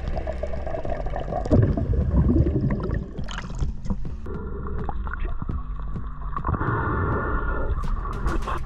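Water gurgling and bubbling around an underwater action camera, with splashing as it moves through and near the surface.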